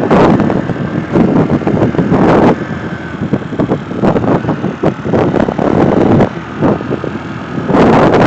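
Wind buffeting the microphone in gusts, loud at the start and near the end and dropping back in between, with rough crackling.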